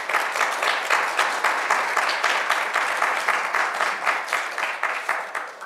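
Audience applauding, a dense steady clapping of many hands that tapers off near the end.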